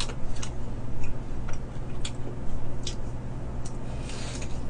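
A man eating fried chicken close to the microphone: scattered sharp clicks and smacks from chewing and handling the chicken, over a steady low hum.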